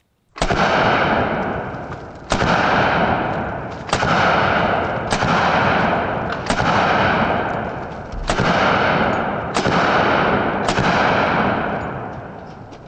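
Calico M950 9mm pistol fired eight times at a slow, deliberate pace, shots about one to two seconds apart, each sharp report followed by a long echoing decay.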